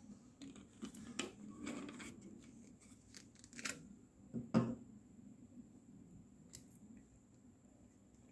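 Faint, scattered clicks and knocks of a plastic bottle and plastic beaker being handled on a table, the loudest knock about four and a half seconds in.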